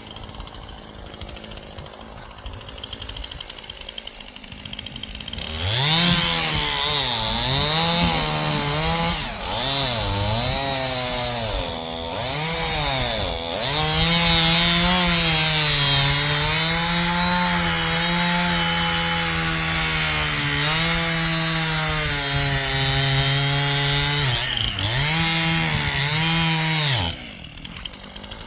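Stihl two-stroke chainsaw running low, then opened up about five seconds in and cutting into wood for some twenty seconds, its engine pitch dipping and recovering again and again as the chain bites under load, before dropping back near the end.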